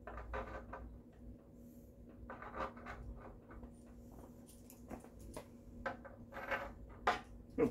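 Handling noises from assembling a wooden cot: scattered light knocks, clicks and rustles of the frame and small fittings in short clusters, over a steady low hum.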